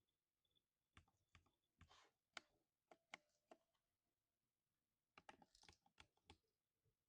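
Lubed linear silver switches on a 60% mechanical keyboard being typed on, quietly: a short run of keystrokes about a second in, a pause, then a second flurry past the five-second mark.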